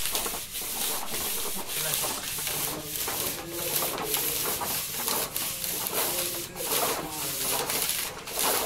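Electrical wires rubbing and scraping as they are drawn through plastic wall conduit, a continuous uneven scraping.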